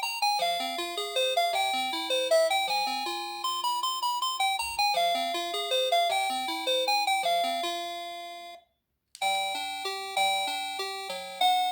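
NX-5776 electronic doorbell chime playing a quick melody of bright bell-like notes. The tune cuts off suddenly about three-quarters of the way through, and after half a second of silence another melody begins.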